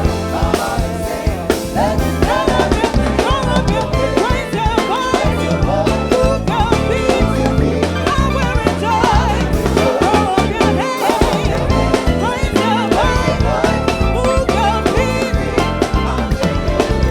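Gospel praise-and-worship music: a lead voice singing over a band, with a drum kit keeping a steady beat.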